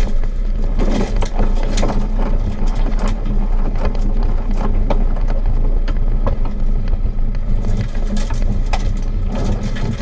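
Land Rover Defender 90 engine running at low revs as it crawls downhill over snowy ground, with frequent knocks and rattles from the body and suspension over the bumps.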